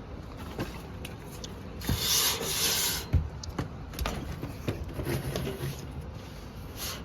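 Air filters scraping as they are slid into the filter rack of a rooftop unit, with a loud rush of rubbing about two seconds in and scattered light knocks.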